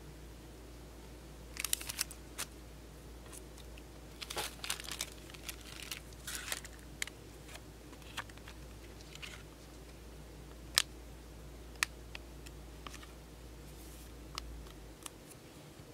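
Pokémon trading cards handled by fingers: papery rustling and sliding of the cards, busiest in the first half, then a few isolated sharp clicks as a card is picked up.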